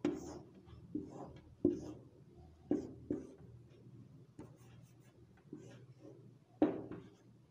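Marker pen scraping and squeaking on a whiteboard in a string of short strokes as straight lines are drawn, about eight in all, the loudest near the end.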